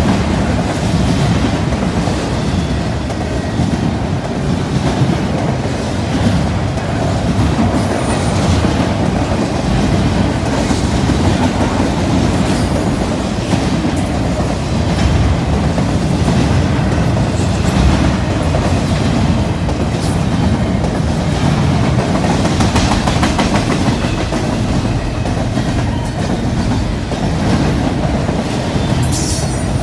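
Double-stack intermodal freight train's container-loaded well cars rolling past: a steady rumble and clatter of steel wheels on the rails.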